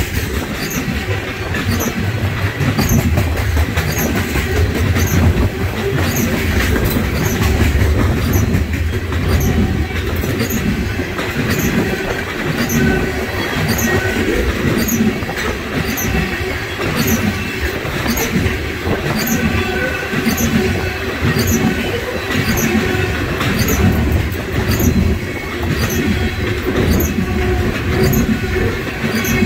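Loaded coal hopper cars of a freight train rolling past close by: a steady, heavy rumble of steel wheels on rail with a regular clicking as the wheels pass over rail joints.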